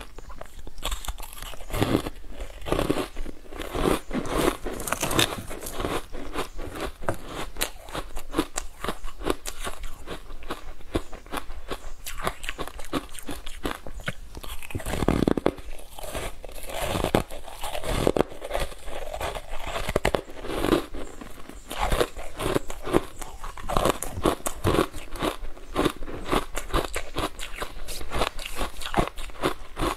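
Ice cubes coated in matcha powder being bitten and chewed, picked up close by a clip-on microphone: a continuous run of crisp, irregular crunches.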